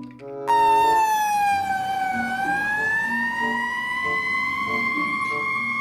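Fire engine siren starting suddenly about half a second in: one long wailing tone that sinks slowly in pitch, then climbs back up and holds high.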